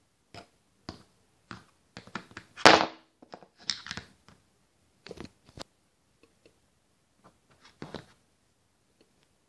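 Plastic Schleich toy horse figure hopped along a hard floor and over toy jumps, making a string of irregular clicks and taps. The loudest is a sharp knock a little under three seconds in.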